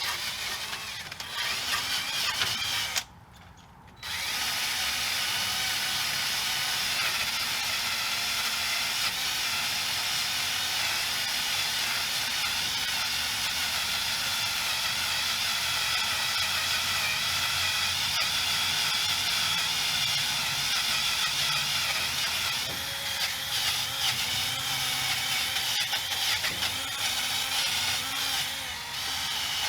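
Ratchet wrench clicking steadily as bolts are worked, breaking off for about a second near three seconds in.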